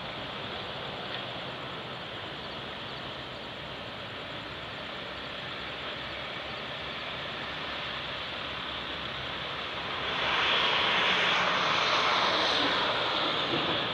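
Steady rushing outdoor noise that swells louder about ten seconds in, holds for a few seconds, then eases off near the end.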